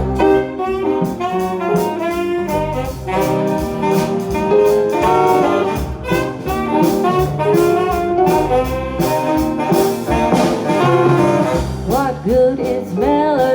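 Live jazz band playing an instrumental swing passage led by saxophones, over drums and bass.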